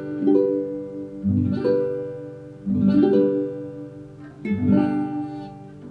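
Acoustic guitar playing slow strummed chords, each struck and left to ring and fade before the next.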